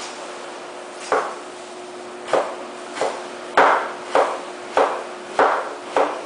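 Kitchen knife chopping onion on a wooden cutting board: about eight chops, a couple spaced out at first, then one roughly every half second or so from the middle on. A faint steady hum runs underneath.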